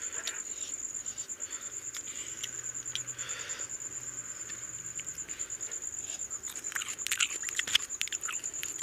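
Eating by hand: fingers squishing and mixing rice with mutton curry on a plate, with soft chewing and mouth clicks, sharpest about seven seconds in. A steady high pulsing whine runs underneath.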